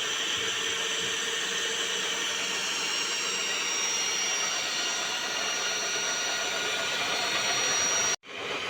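A small electric motor running steadily with a high whine over a rushing noise, cut off abruptly near the end.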